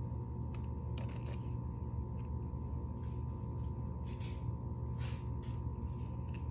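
A steady low electrical-sounding hum with a constant higher tone over it, and scattered soft clicks and rustles of small items being handled.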